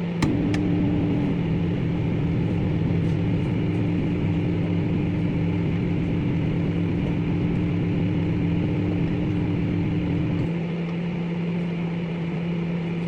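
Microwave oven running with a steady electrical hum, starting with a click just after the beginning. The hum lightens a little about ten and a half seconds in.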